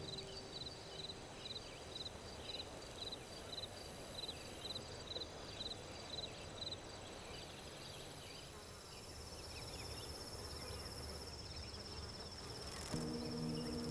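Insects chirping in an even rhythm, about two chirps a second, joined about nine seconds in by a steady high insect drone. Soft music comes back in near the end.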